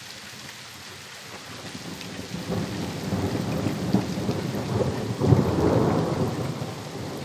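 A roll of thunder, rather weak, rumbling up from about two seconds in to its loudest around five seconds, then easing off. Steady rain hiss runs under it.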